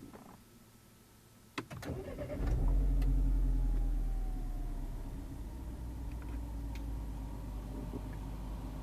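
Mini Cooper S (R56) 1.6-litre turbocharged four-cylinder engine with its stock exhaust being started: a click, a brief crank, then the engine catches about two and a half seconds in with a loud flare of revs. The revs fall back and settle to a steady idle over the next couple of seconds.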